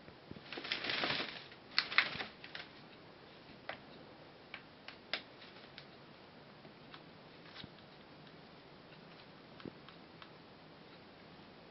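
Wet hooded crow rustling its feathers, one burst about a second in, followed by scattered small sharp clicks and taps.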